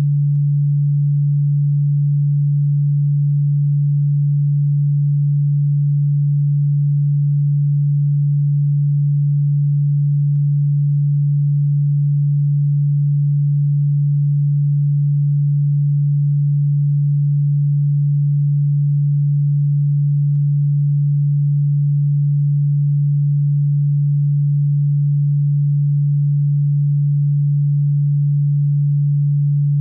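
A steady, unchanging low-pitched electronic sine tone, held without a break and played as a cockroach-repellent sound. A very faint click comes about every ten seconds.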